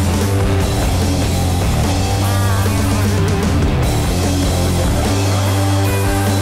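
Background music: a loud rock track with heavy guitars and a steady strong bass.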